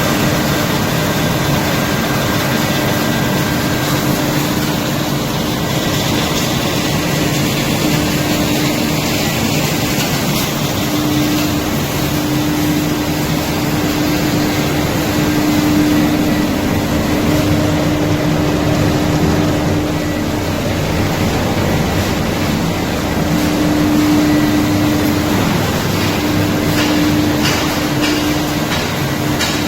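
Zinc powder making machine, a metal powder grinder, running steadily. It makes a loud, constant mechanical rushing noise with a steady hum running under it.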